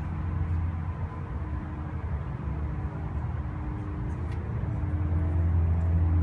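Steady low rumble with a faint hum over it, swelling slightly near the end.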